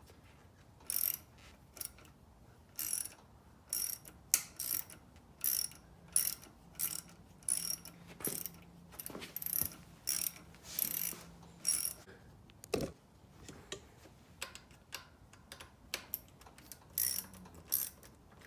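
Ratchet wrench being worked in short strokes, each stroke a quick rasping run of clicks, about one or two a second with pauses, loosening a bolt while the brake lever assembly comes off the handlebar. One dull knock about two-thirds of the way through.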